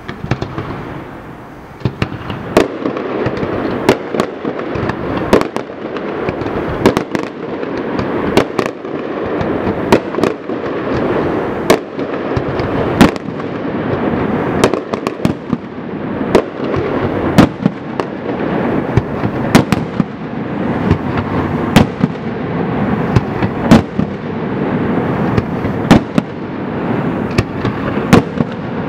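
Aerial fireworks display: sharp bangs of bursting shells, irregular and about one or two a second, over a continuous rumble.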